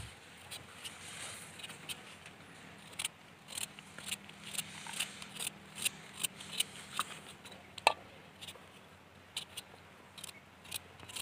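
Small kitchen knife cutting through a raw carrot held in the hand, chopping it into fine slivers: a string of crisp, irregular clicks.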